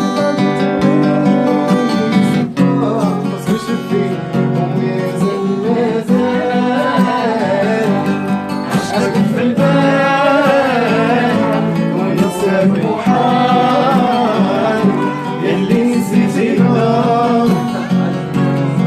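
Live acoustic guitar playing chords, with a wavering sung melody over it.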